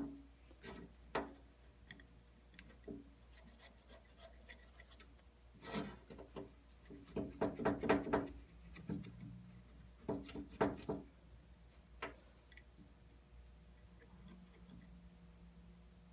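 Razor blade scraping old gasket material off the thermostat housing's mating surface on a Jeep 4.0 engine, in short scratchy strokes with a few clicks. The strokes come in runs, the busiest a little past the middle.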